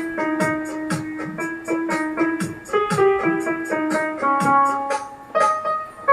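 Piano sound played from a Nektar SE61 MIDI keyboard as a working test: a melody and chords over a held low note, with a light regular beat underneath.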